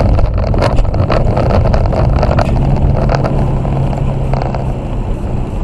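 Car engine and road noise heard from inside the cabin while driving: a steady low engine drone with tyre rumble and frequent small knocks from the road surface.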